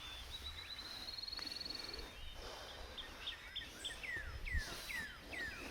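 Songbirds singing: a fast, high trill about two seconds long, then a run of four quick down-slurred whistles near the end, over a low rumble.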